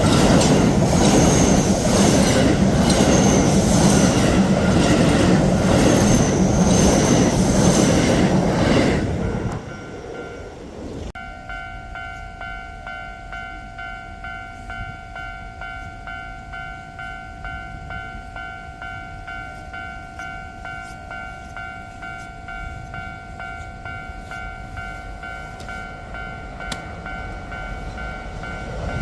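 A Keio Line train passes over the level crossing for the first nine seconds or so, then dies away; a couple of seconds later the crossing's electronic warning bell is ringing steadily on its own, a repeating two-tone chime, keeping the crossing closed, and another train comes in just at the end.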